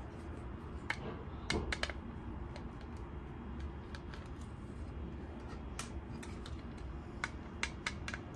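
Small scattered metal clicks and ticks of a screwdriver working the screws on a metal hard-disk caddy, with a quick cluster about a second and a half in and several more near the end, over a steady low hum.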